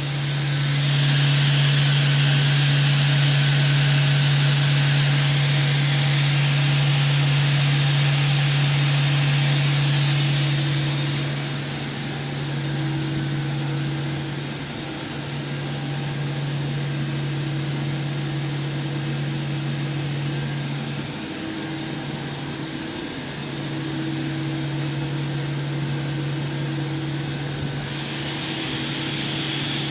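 Doosan DNM 500 II vertical machining centre spindle running at 8,500 rpm: a steady hum with a high hiss over it. The hiss eases off after about ten seconds and comes back near the end.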